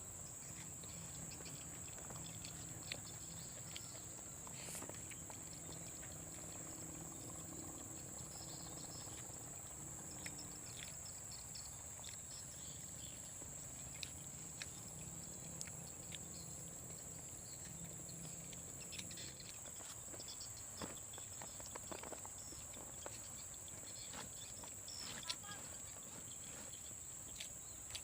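Tropical forest insects giving a continuous high-pitched drone, with scattered faint clicks and ticks over it.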